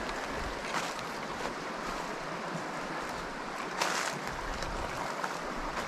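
Footsteps crunching through snow-dusted, frozen leaf litter, a few steps about a second in and a louder one near four seconds in, over a steady rushing background noise.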